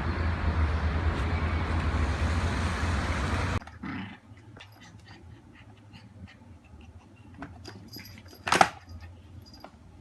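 Steady outdoor rumble of traffic noise that cuts off suddenly about three and a half seconds in. Then soft scattered ticks and taps in a quiet room, and one short, sharp yap from a Maltipoo puppy near the end.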